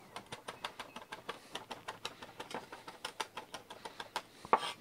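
Cleaver mincing garlic on a wooden cutting board: a quick, even run of light taps, about five or six a second, with one louder knock near the end.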